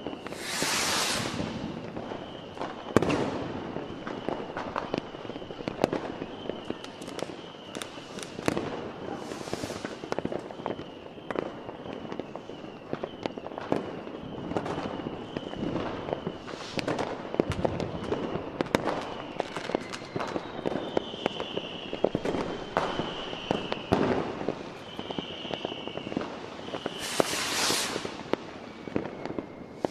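Fireworks going off: frequent sharp bangs of bursting aerial shells with crackling between them. Loud surges of hiss and crackle lasting about a second come near the start, about ten seconds in and near the end. A thin high whistle sounds underneath much of the time and glides down in pitch near the end.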